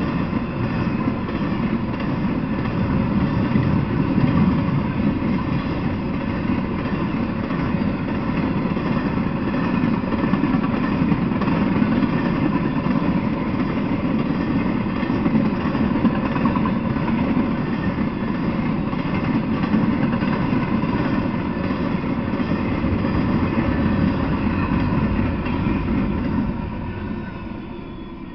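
Freight train of empty flatcars rolling past at speed: a steady rumble and clatter of steel wheels on the rails. It fades away near the end as the last car goes by.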